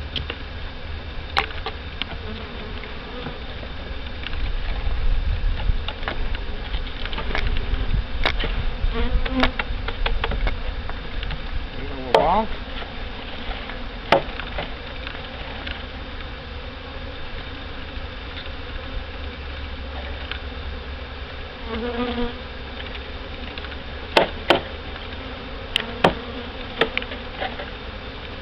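Swarm of honey bees from a 3-pound package buzzing as they are worked into the hive, with several sharp knocks now and then, most of them near the end.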